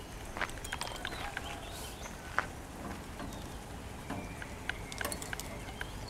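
Scattered light knocks and clicks of a wooden pole-climbing step board and its strap against a power pole as a lineman climbs it, with one sharper knock about two and a half seconds in.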